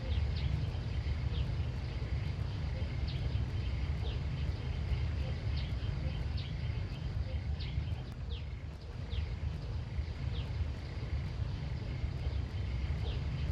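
Outdoor country ambience: a steady low rumble with short, quickly falling high chirps repeating irregularly, about one or two a second.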